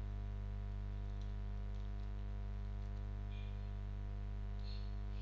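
Steady low electrical hum with a ladder of buzzing overtones, and a few faint, soft high ticks scattered through it.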